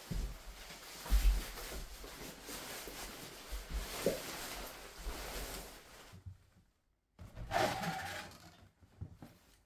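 Rustling and bumping of backpacking gear as a loaded backpack and bags are lifted and shouldered, with a few low thumps and footsteps on a wooden floor. Near the end a wooden door is opened.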